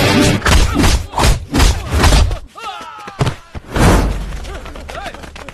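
Fight-scene sound effects: a rapid series of punch and body-impact thuds, with short shouts and grunts from the fighters. The loud hits fall mostly in the first half, then it quietens to scattered grunts.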